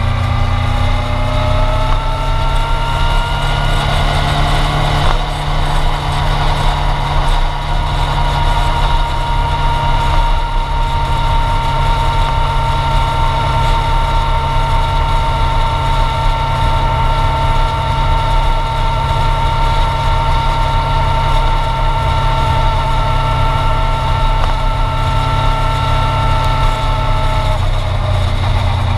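Yamaha sport bike's engine pulling up through the gears over the first few seconds, then running at a steady cruise with a high whine, easing off near the end. Heavy wind rumble on the fairing-mounted microphone.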